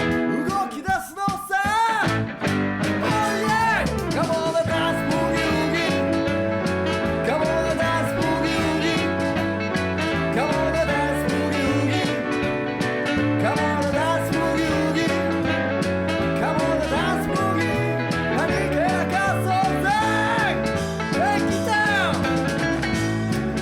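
Background rock song with guitar and a steady beat.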